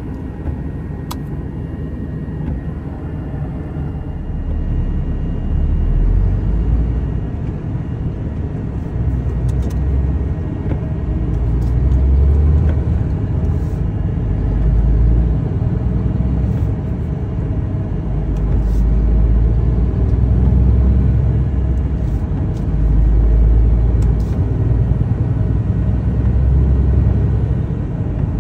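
Heavy truck heard from inside the cab: a low engine and road rumble that swells and eases every few seconds.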